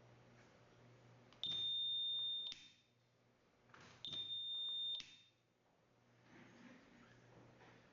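Two steady, high-pitched electronic beeps, each about a second long and starting with a click, about two and a half seconds apart: the newly wired magnetic lock kit giving its signal as its circuit is tested.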